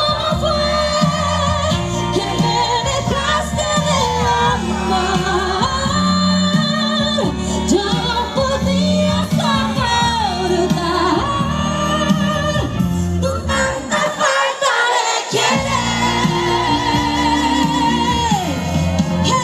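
A woman singing a romantic Spanish-language ballad with vibrato over amplified backing music with steady bass and chords. The bass drops out briefly near the end.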